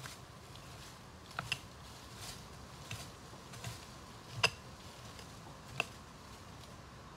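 About six short, sharp clicks and taps at irregular intervals, some with a brief ring, the loudest about halfway through.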